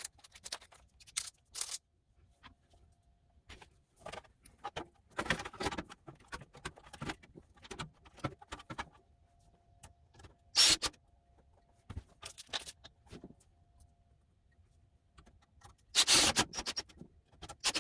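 Irregular clicks, rattles and scrapes of metal parts being handled as a power supply is worked into a desktop computer's tower case. The loudest clatters come about ten seconds in and near the end.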